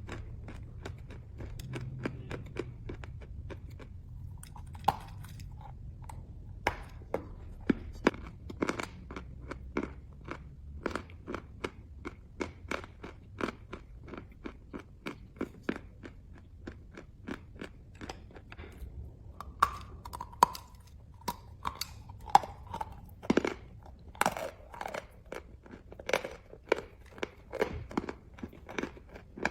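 Chalk being bitten and chewed close to the microphone: a dense, irregular run of sharp, crisp crunches, several a second.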